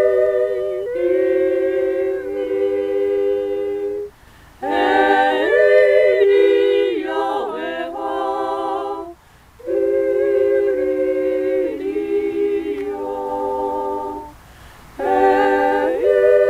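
A small group of singers singing a song together a cappella, unaccompanied, in phrases of a few seconds each with short breathing pauses between them.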